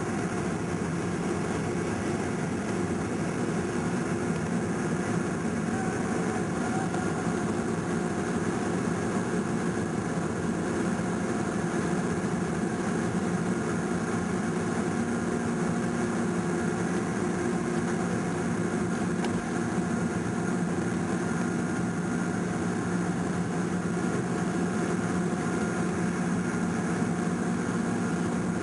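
Steady cabin drone of a Boeing 747-400's turbofan engines running at low power on the ground, heard from inside the passenger cabin, with several held tones and no rise in power.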